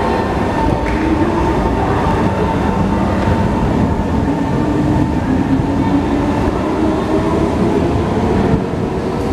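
SMRT East West Line metro train moving along a station platform behind platform screen doors: a loud, steady rumble of wheels on rail, with faint whining tones running through it.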